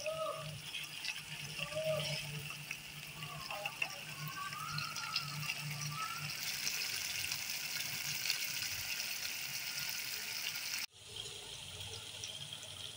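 Potato-and-eggplant curry with yogurt sizzling in a pot as it is fried and stirred, a steady hiss with a low hum underneath. This is the frying-off stage, cooking the yogurt masala until the oil separates. The sound cuts out briefly near the end.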